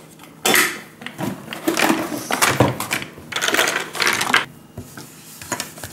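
Plastic Play-Doh toy tools (knives, forks, cutters) clattering and clicking against each other and the table as they are taken out and handled, in three spells of rattling.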